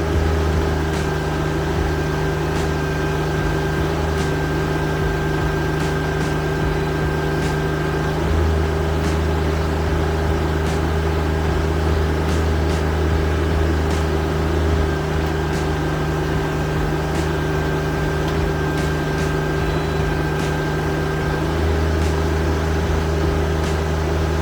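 Diesel engine of a TYM T25 compact tractor running steadily at working speed while the backhoe digs. Its deep tone gets stronger and eases off a few times as the load changes.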